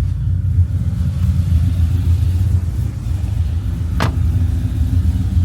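Ford Mustang GT's V8 engine idling with a steady low rumble after being warmed up. A single sharp click comes about four seconds in.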